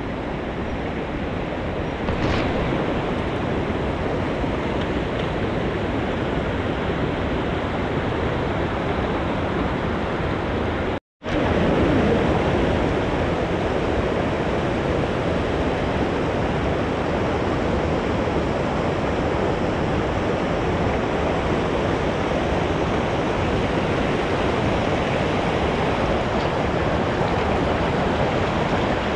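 Heavy rain falling steadily, a dense even hiss. The sound cuts out for a moment about eleven seconds in.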